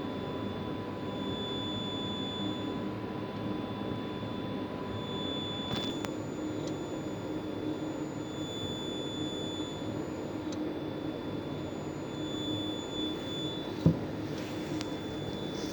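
Electronic throttle body (Wahler, 2.3 JTD/HPI diesel) driven during a function test: a high electric whine swells and fades every few seconds over a steady low hum. A single sharp click comes near the end.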